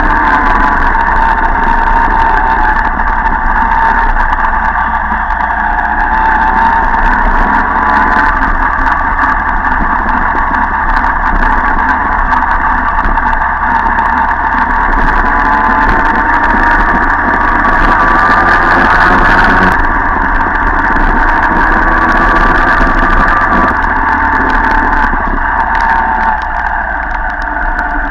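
Small two-stroke engine of a Jawa Pionýr moped running under way, a steady buzz that wavers in pitch with the throttle, with other Pionýr mopeds riding close by. The engine note eases off a little near the end as the bikes slow down.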